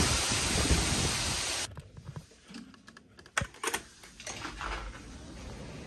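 Strong hurricane wind blowing through trees and buffeting the microphone, cut off abruptly a little under two seconds in. A handful of sharp clicks and short rustles follow, then faint steady noise.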